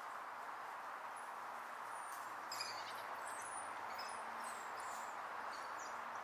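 Scattered short, high-pitched animal chirps over a steady background hiss.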